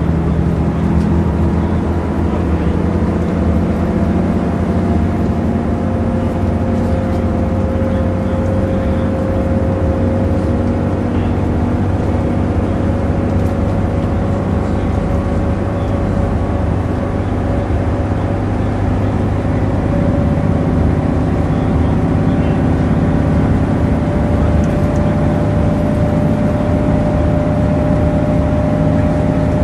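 Volvo B10M Citybus double-decker heard from inside on the upper deck while under way: its mid-mounted underfloor six-cylinder diesel runs steadily, with road and body noise. The engine pitch rises slowly throughout as the bus gathers speed.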